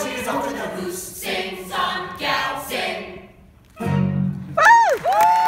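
Musical theatre ensemble singing the last phrases of a stage number with accompaniment, fading out a little past halfway. After a brief hush, a low chord comes in, then a high note swoops down and holds.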